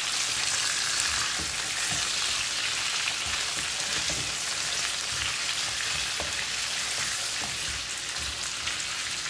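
Chicken drumsticks sizzling in hot mustard oil in a nonstick kadai on full flame, a steady frying hiss. Irregular low knocks as a silicone spatula stirs and turns the pieces against the pan.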